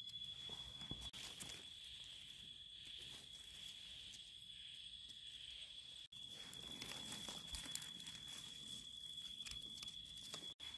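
Faint rustling and crackling of dry leaf litter and soil as a small mushroom is dug out and handled, over a steady high-pitched insect call.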